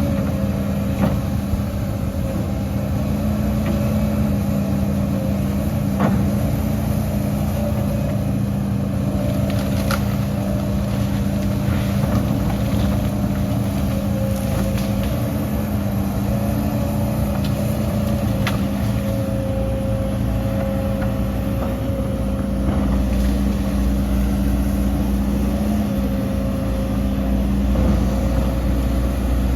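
Heavy diesel earthmoving machinery running steadily with an even hum, and now and then a sharp knock or clank.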